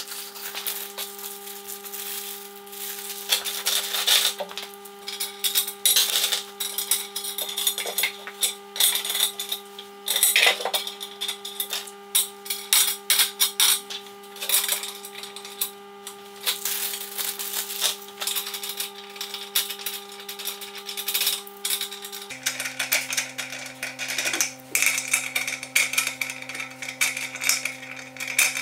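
Small aluminium and steel parts clicking and clinking as angle brackets, bolts and T-nuts are handled and fitted onto aluminium extrusion profiles, in irregular sharp clicks. Underneath is background music of held chords that change about three-quarters of the way through.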